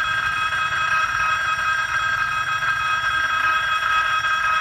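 Train horn held in one long, steady blast of several high tones sounding together, over a low rumble.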